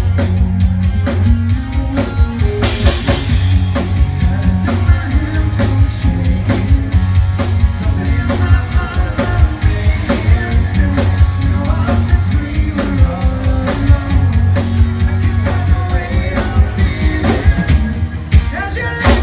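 Live rock band playing: a drum kit keeping a steady beat under a moving electric bass line and electric guitars, with a cymbal crash about three seconds in.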